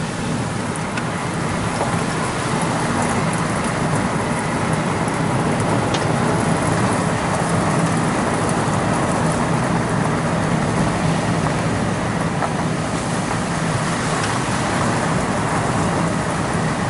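Car driving along a road: a steady engine hum under continuous tyre and road noise.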